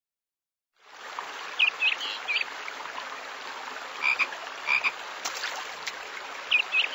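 Fisher-Price Rainforest Bouncer's sound unit playing its recorded rainforest nature sounds: a steady hiss of rain-forest ambience with frog-like chirping calls in small clusters every second or two. It starts about a second in after a brief silence.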